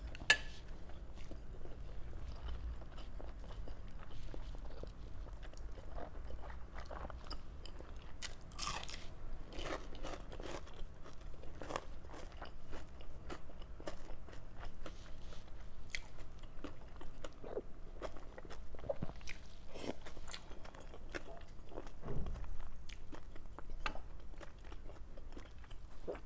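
A person chewing and biting, with scattered crisp crunches, while eating fried galunggong (round scad) with rice.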